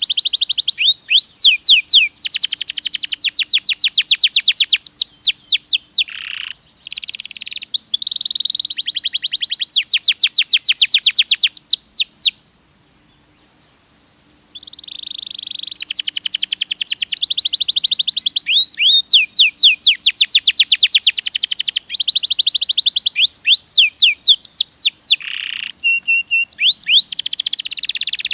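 Domestic canary singing: long rolling trills of rapidly repeated high notes, in phrases of a few seconds, with a silent pause of about two seconds near the middle.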